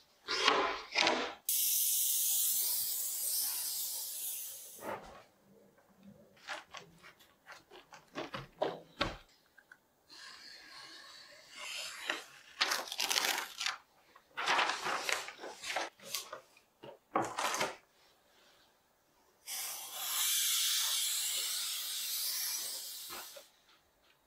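An aerosol spray can hissing in two long steady bursts of about three to four seconds each, one near the start and one near the end. In between come short scratchy strokes: a knife cutting paper along a steel ruler, with paper rustling.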